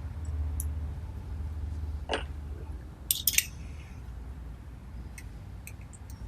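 Small metal parts and hand tools clicking and clinking as idler gear covers are fitted to a thread-rolling attachment, with a sharp cluster of clinks about three seconds in, over a steady low hum.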